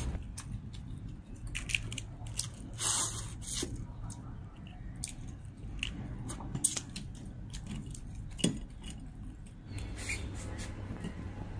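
Someone eating whole cooked crayfish by hand: shells cracked and pulled apart, with chewing and lip sounds, heard as scattered small clicks and a brief louder noise about three seconds in.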